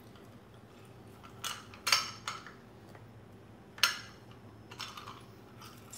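Handheld lime squeezer clacking as limes are pressed over a stainless steel bowl: about five short sharp clicks and knocks, the strongest around two seconds and four seconds in.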